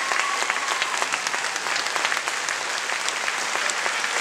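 Audience applauding steadily, a dense clatter of many hands clapping in a hall.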